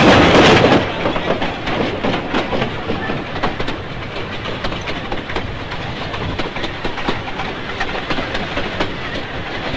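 Narrow-gauge train running along the line, its wheels clicking over the rail joints and its carriages rattling. Louder for about the first second, then a steady rhythm of irregular clicks over a continuous rumble.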